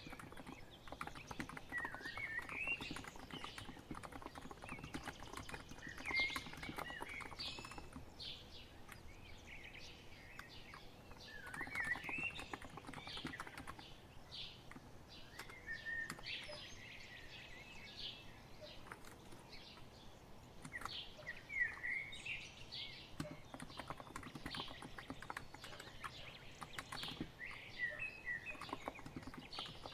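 Continuous typing on a COX Empress electro-capacitive keyboard, a dense run of soft key taps. Behind it birds are singing, with a short chirping phrase coming back about every five seconds.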